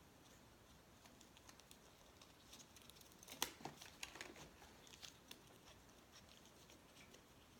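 Faint clicks and rustling of a motorcycle helmet's chin strap being fastened under the chin, clustered in the middle, with the sharpest click about three and a half seconds in.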